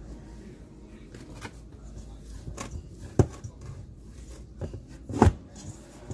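Hands kneading bread dough in a stainless steel bowl, with a handful of short knocks against the bowl; the loudest comes about five seconds in, another about three seconds in.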